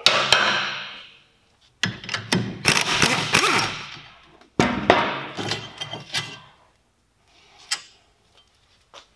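Socket tools working the brake caliper carrier bolts on a car's front hub, making metallic clanking and rattling in three spells of a second or two each, with a single click near the end.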